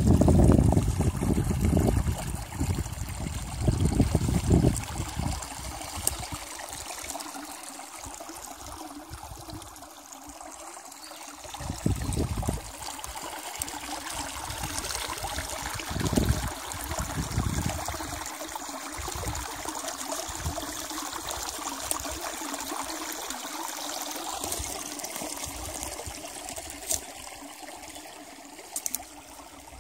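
Small, shallow woodland brook trickling and babbling steadily over stones and fallen debris. Bouts of low rumble on the microphone come and go, loudest in the first few seconds and again about twelve and sixteen seconds in.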